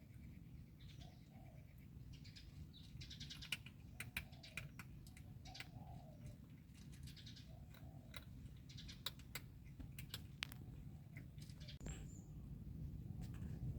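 A cat crunching dry kibble: irregular sharp clicks and crackles, with a few faint short calls mixed in and a steady low rumble underneath.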